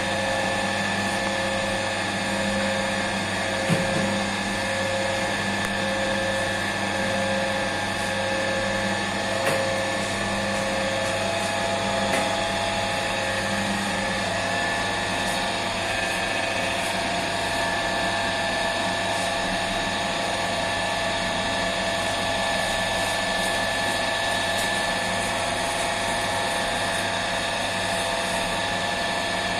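Bakery spiral dough mixer running steadily, its motor and hook turning through dry flour, with a few light knocks in the first half.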